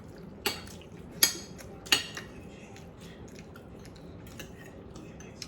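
Cutlery clinking against a plate, three sharp clinks in about the first two seconds, then only faint small ticks.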